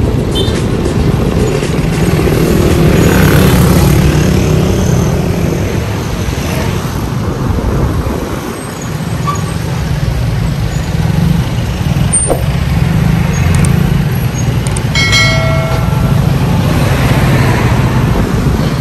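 Steady low rumble of wind on the microphone and road noise while riding, with a short horn beep about fifteen seconds in.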